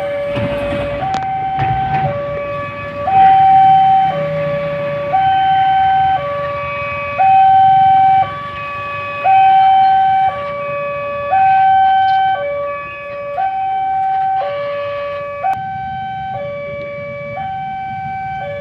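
Railway level-crossing warning siren sounding a steady two-tone hi-lo alarm, switching between a higher and a lower tone about once a second. This warns that a train is approaching and the crossing is closing.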